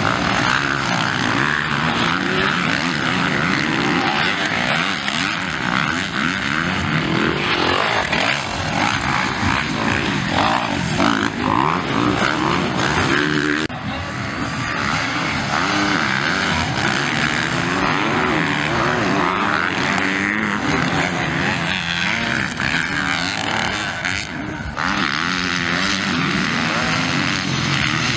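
Several motocross dirt bikes racing, their engines revving up and down repeatedly as they accelerate, shift and pass. The sound shifts abruptly twice, once about halfway through and again near the end, as it jumps between sections of the race.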